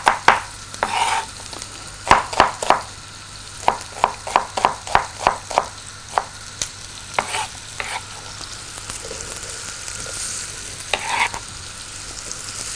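Knife chopping onion on a wooden cutting board, sharp strokes in quick runs of about two or three a second, over a steady faint sizzle of butter melting in a pot. A short rustle comes about eleven seconds in as the chopped onion goes into the pot.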